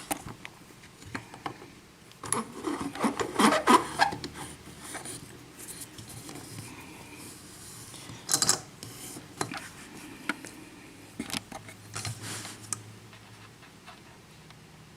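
Handling of a small pin-tumbler lock and its metal parts: scattered light clicks and rubbing, busiest about two to four seconds in, with another short burst near the middle.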